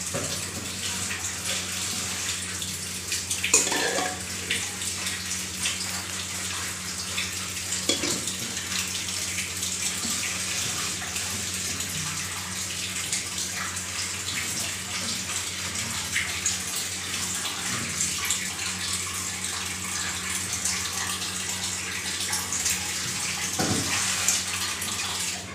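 Steady rushing hiss with a low hum beneath it, and a few faint knocks.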